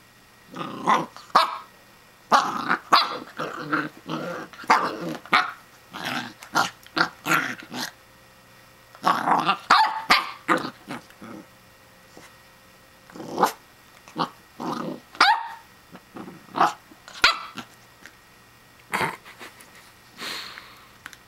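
Pembroke Welsh Corgi puppy growling and barking in short bursts, busy through the first half, then more spaced out. It is a young puppy's play-aggression directed at a toy.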